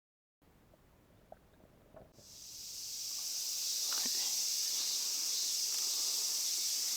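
Steady high-pitched insect chorus that swells in about two seconds in and then holds, with a few faint clicks before it.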